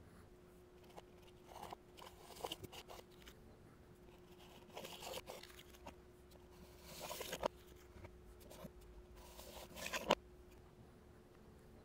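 White blocks being slid and lifted away one at a time: several short, faint scraping and rustling sounds, the last ending in a sharp knock about ten seconds in, over a faint steady hum.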